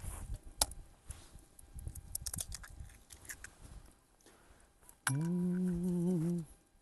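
A few light clicks and taps, then near the end a man hums one steady low note for about a second and a half.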